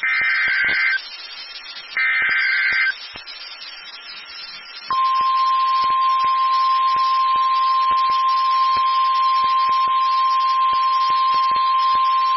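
NOAA Weather Radio Emergency Alert System signal: two short buzzing data bursts of the SAME header, a second apart, then about five seconds in the steady single-pitch 1050 Hz warning alarm tone starts and holds, announcing a new weather warning. Radio hiss and light crackle run underneath.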